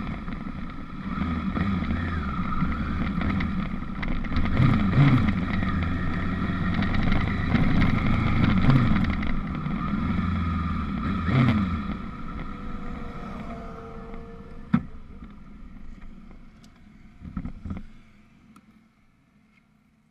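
Sport motorcycle engine running under way with wind rushing past, its revs rising and falling several times as it rides through the bends. From about twelve seconds in it slows and gets quieter, with a couple of sharp clicks, and the engine sound dies away near the end as the bike stops.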